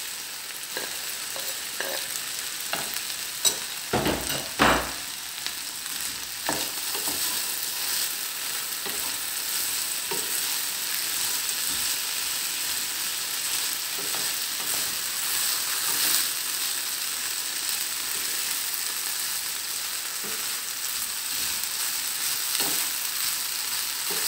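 Sliced potatoes and onion sizzling in hot oil in a frying pan over a high gas flame, with a wooden spatula stirring and scraping through them. A few loud knocks come about four seconds in.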